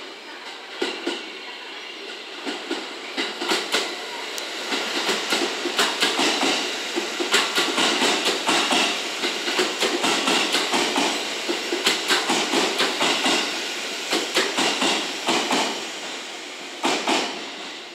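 JR Shikoku 5000 series and JR West 223 series electric multiple-unit train running past, its wheels clacking over rail joints and pointwork. The clacks build to a dense run in the middle, thin out as the train goes by, and end with a last pair as the rear bogie crosses.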